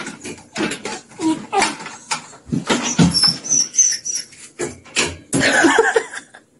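Small dog giving short, high squeaky whimpers about three seconds in, amid many irregular clicks and knocks.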